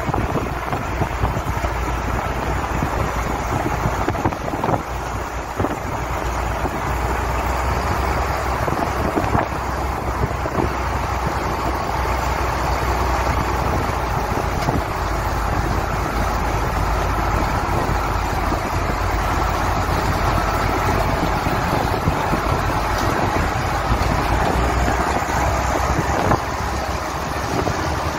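Farm machinery engines running steadily under load, with wind on the microphone.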